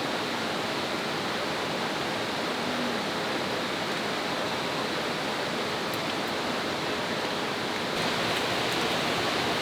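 Mountain valley stream rushing steadily, getting slightly louder about eight seconds in.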